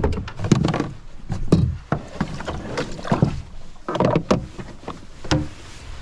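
Irregular knocks and clunks of hands and gear against the hull and deck fittings of a Native Watercraft Titan X 10.5 fishing kayak: about a dozen sharp knocks and thumps spread unevenly through the few seconds.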